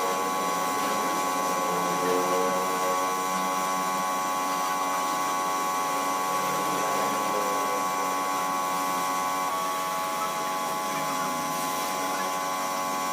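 A power tool's electric motor running steadily: an even hum with a high whine that does not change, with faint voices behind it.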